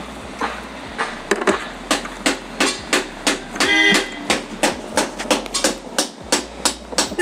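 Hammering on metal, even blows at about two and a half a second, with a short pitched sound about four seconds in.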